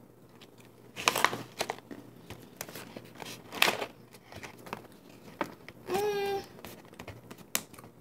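Plastic snack pouch crinkling and rustling as it is handled, in irregular crackles, with a short hum from the person about six seconds in.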